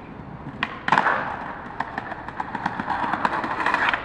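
Skateboard wheels rolling over stone paving: a knock about a second in, then a rumble with quick clicks as the wheels cross the joints, growing louder.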